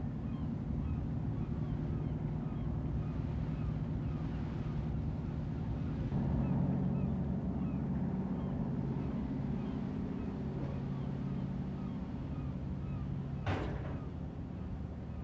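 Engines of the Sealink car ferry Earl William running with a steady low drone, which grows louder about six seconds in. A single sharp knock comes near the end.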